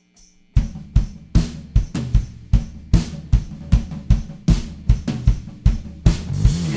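Rock drum kit starting a song: a few light hi-hat or stick ticks count in, then about half a second in the full groove kicks in, with kick drum, snare, hi-hat and cymbals on a steady driving beat of about one stroke every 0.4 s.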